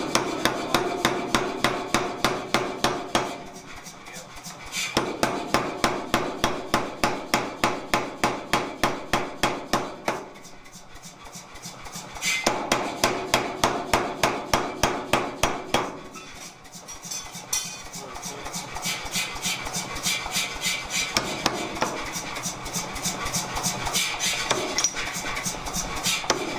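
88 lb Anyang power hammer pounding a red-hot steel swage block, about three blows a second, in runs of several seconds with short pauses between. After about 16 seconds the blows turn lighter and more even, with the hammer's motor humming underneath.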